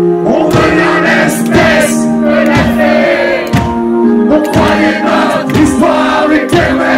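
Live metal band playing loud: electric guitars holding chords, drums hitting steadily, and a male singer's voice over them, heard from among the crowd.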